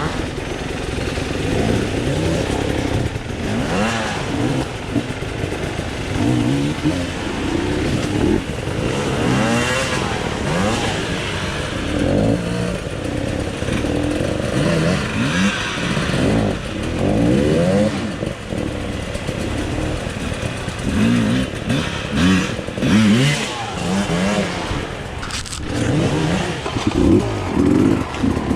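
Dirt bike engine revving up and falling back again and again as it is ridden over an enduro trail, heard close from an onboard camera.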